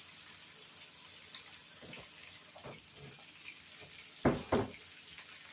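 Kitchen tap running as water is drawn for the gravy, shut off about halfway through, then two sharp knocks a moment apart.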